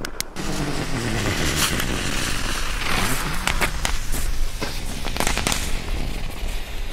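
The fuse of a Pyro Union 1-gram firecracker with a pre-burning fuse (Vorbrenner), lit and burning with a steady hiss and crackle, with a few sharp cracks scattered through.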